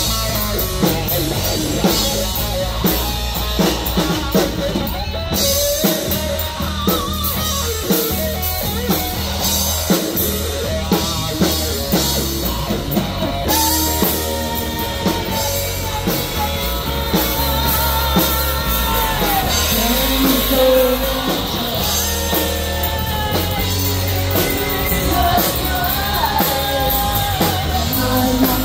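Live rock band playing: distorted electric guitar and drum kit, with a woman singing lead vocals over them from about halfway through.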